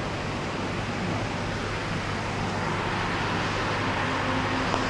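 Wind blowing, a steady rushing noise.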